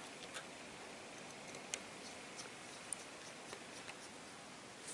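A few faint, irregular light ticks of a small precision screwdriver working tiny screws into an iPhone 6's metal frame, over a low steady hiss.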